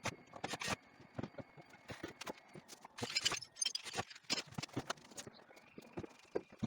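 Irregular light knocks, clicks and clatter, with a short scraping rustle about three seconds in, over a faint steady high whine.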